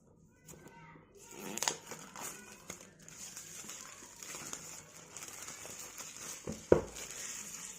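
Packaging being handled as a smartphone box is opened: continuous crinkling and rustling with scattered crackles, and a single sharp knock about a second before the end.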